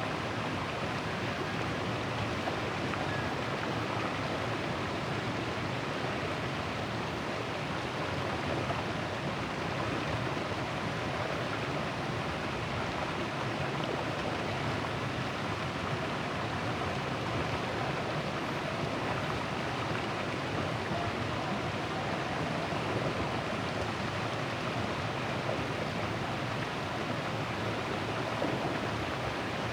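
River water rushing steadily over and around a large boulder, a continuous even noise with no breaks.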